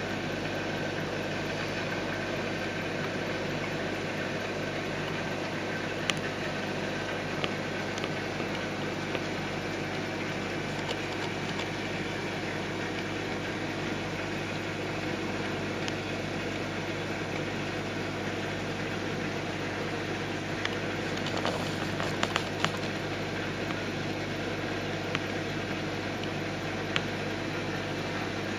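Steady hum with an even rushing hiss of water and bubbles from a running Red Sea Max 130D all-in-one reef aquarium, with scattered faint clicks, several together about three-quarters of the way through.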